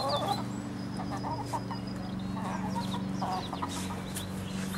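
Black Star hens clucking softly in short bursts over a steady low hum.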